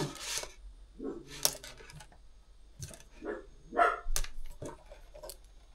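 A dog barking a few short times, not loudly, with a sharp click about four seconds in.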